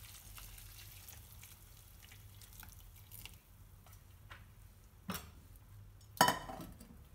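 Hot water poured from a saucepan into a glass bowl of harusame noodles: a soft trickle and drips. A knock about five seconds in and a louder knock with a short ring a second later, as the pot is handled on the counter.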